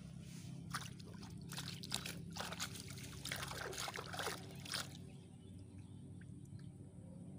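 Water splashing and sloshing in a quick run of short bursts over the first five seconds, over a steady low hum.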